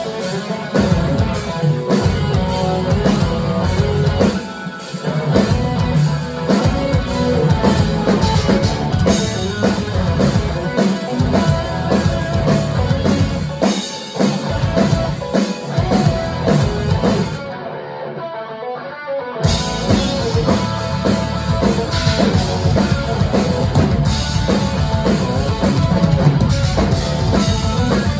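Instrumental rock band playing live: two electric guitars, a bass guitar and a drum kit. About eighteen seconds in, the drums and bass drop out for roughly two seconds, leaving a thinner guitar passage, before the full band comes back in.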